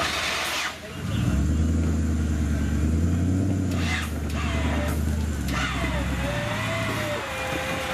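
Off-road 4x4's engine working hard under load, dipping briefly about a second in, then holding steady high revs for several seconds before easing off near the end. A wavering higher-pitched tone runs over it in the second half.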